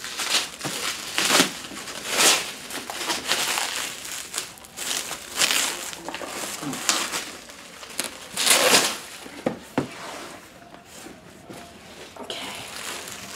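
Plastic bubble wrap crinkling and rustling in irregular bursts as it is pulled off a cardboard box, the loudest bursts a little past the middle.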